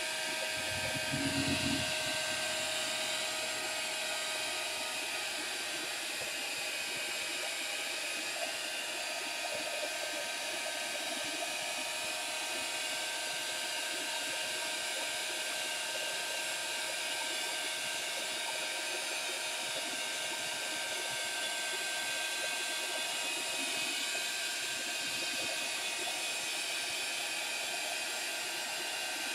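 Handheld craft heat tool blowing steadily, its fan and hot air making an even rushing noise with a faint steady whine, drying wet Color Burst and Mineral Burst watercolour on paper. A brief low bump about a second in.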